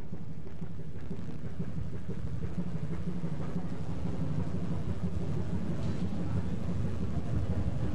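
Steady low rumble aboard a boat at sea, the engine, wind and waves running together, growing a little louder after a couple of seconds.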